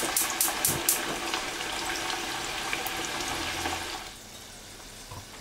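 Potato wedges deep-frying in a saucepan of hot oil: a dense, steady sizzle and bubbling, the first fry that pre-blanches the wedges. A few light clicks come in the first second, and the frying drops to a quieter level about four seconds in.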